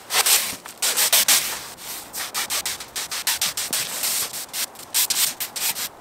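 Broom sweeping wet snow off a trampoline mat: quick, repeated scraping strokes of the bristles, about three a second.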